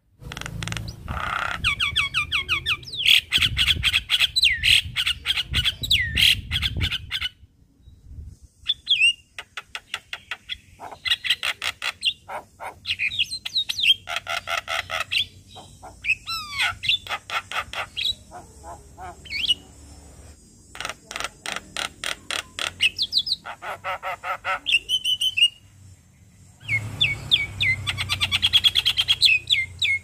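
Javan myna (jalak kebo) in full song: rapid runs of clicks mixed with whistled chirps and harsh squawks, in bursts with a couple of short pauses.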